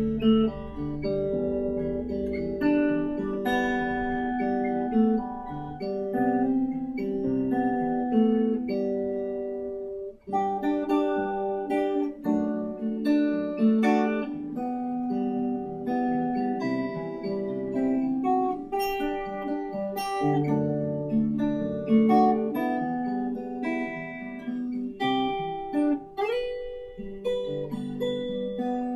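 A Taylor 514ce acoustic guitar, with a solid cedar top and mahogany back and sides, played as a sound demo: a melodic passage of picked notes and chords ringing out, with a brief break about ten seconds in.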